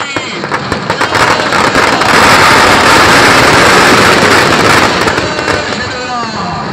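Firecrackers in a burning Ravana effigy going off: separate sharp cracks at first, then a dense, very loud crackling barrage for about three seconds that dies down near the end.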